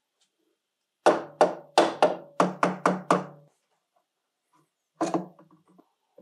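Metal parts of a disassembled circular saw knocked and set down on a wooden workbench: a quick run of about eight ringing knocks, then one more near the end.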